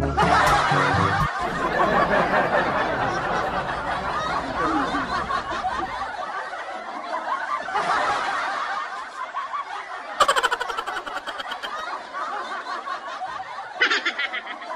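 People laughing, a dense overlapping chuckling that runs on without a break, with a sharper burst of pulsing laughter about ten seconds in and another near the end.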